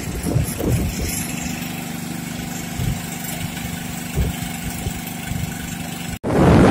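A steady low hum of the engine running aboard a tugboat, heard on deck with rough low rumbling of surf and wind. Near the end it cuts suddenly to loud wind buffeting the microphone.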